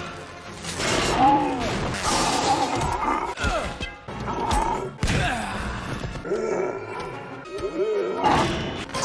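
A rapid chain of short film clips: characters' yells, grunts and groans over film-score music, with abrupt cuts between clips and occasional thuds.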